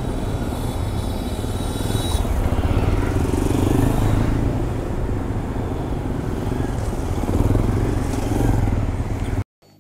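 Motorcycle engines running, Benelli Imperiale 400 single-cylinders among them, with steady engine and road noise as the group moves off. The sound cuts off abruptly near the end.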